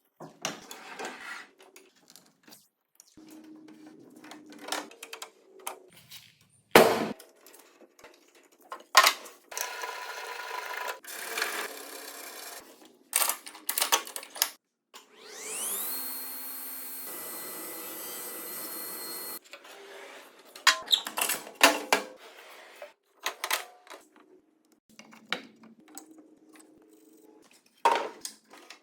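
Workshop sounds of a tool being fitted and used: scattered clicks, knocks and scraping. Midway a power tool spins up with a rising whine, runs steadily for a few seconds, then cuts off.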